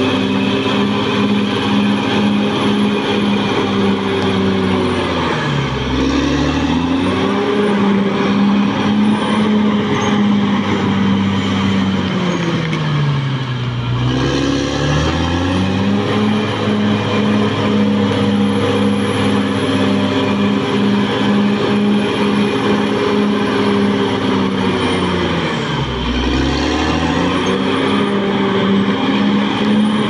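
Caterpillar D6R XL crawler bulldozer's turbocharged diesel engine running hard as the blade pushes earth, with a faint high turbo whine over it. Three times the engine revs sag and climb back, about six, thirteen and twenty-six seconds in.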